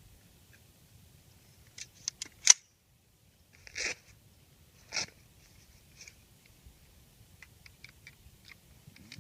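Metal parts of a LaRue PredaTOBR AR-10-type takedown rifle being fitted together by hand. A quick run of small clicks ends in one sharp snap about two and a half seconds in, followed by two short sliding rasps about a second apart and a few faint ticks.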